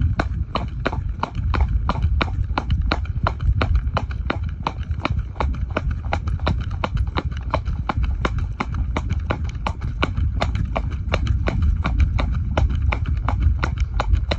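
Horse trotting on a paved lane, its hooves striking the tarmac in a quick, even clip-clop, over a steady low rumble.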